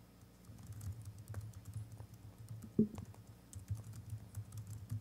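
Faint laptop keyboard typing: scattered soft key clicks over a steady low hum, with one brief louder sound just before the three-second mark.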